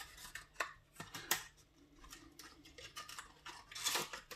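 Small cardboard box being opened by hand: a few light clicks and taps of card, then a brief scraping rustle near the end as the contents slide out of the sleeve.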